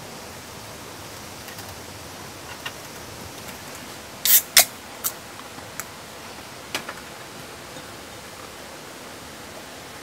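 Steady hiss with several short, sharp clicks and taps; the two loudest come close together a little past four seconds in, followed by a few fainter ones.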